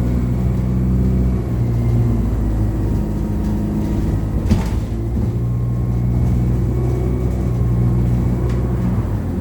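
ADL Enviro200 single-deck bus's diesel engine running steadily under way, heard from inside the cabin. About halfway through there is a brief knock and the engine note dips, then picks up again.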